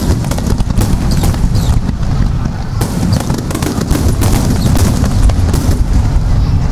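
Rapid-fire barrage of aerial firework shells (a star mine) bursting in quick succession. The booms overlap into a continuous low rumble, with many sharp pops and cracks on top.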